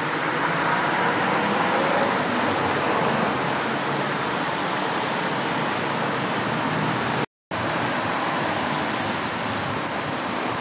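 Steady rush of road traffic noise, cutting out for a moment about two-thirds of the way through.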